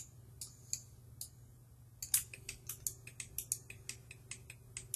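Computer mouse and keyboard clicks: a few scattered clicks, then a quick run of many clicks from about two seconds in, over a low steady hum.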